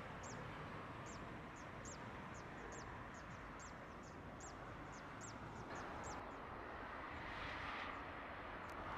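A small bird chirping over and over, short high notes that drop in pitch, about two a second, over a steady distant rumble of airport noise. From about six seconds in, a rushing jet-engine sound swells up.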